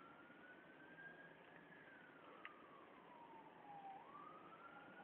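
A faint siren wailing, its pitch rising and falling slowly: one long rise and fall, then rising again near the end. A single small click about halfway through.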